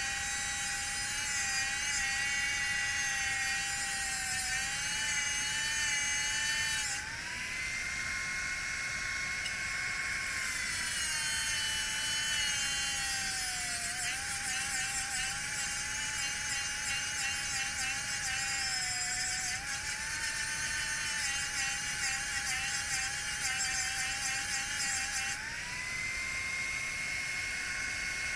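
Electric angle grinder grinding steel: a steady high motor whine that sags and wavers while the disc bears on the metal, and twice rises to a higher, steady free-running pitch when the disc is lifted off, about a quarter of the way in and near the end.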